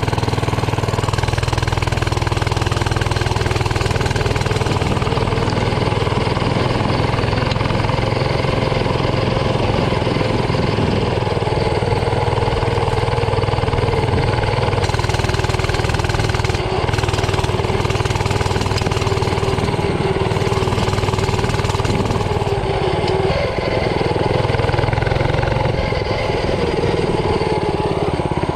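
Coleman CC100X mini bike's 99cc single-cylinder four-stroke engine running steadily while being ridden. Its pitch wavers up and down a little with the throttle.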